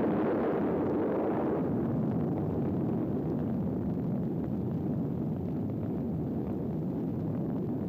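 Blast wave of the Zebra atomic bomb test arriving at the recording position: a long, loud, deep rumble that follows a sudden boom, easing only slightly as it goes on.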